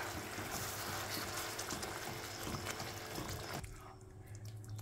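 Fried onion-tomato masala sizzling and bubbling in a pan with the hot water just added to make the gravy, stirred with a ladle. The sizzle cuts off abruptly about three and a half seconds in, leaving only faint clicks.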